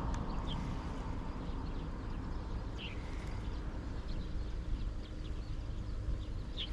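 Outdoor riverside ambience: a steady low rumble with short, high bird chirps scattered through it.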